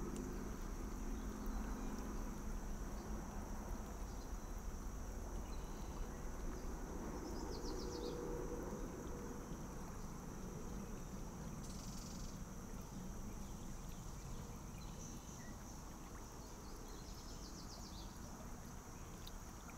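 Shallow, clear river water rippling steadily over gravel and around reeds. A songbird gives short, rapid trills several times.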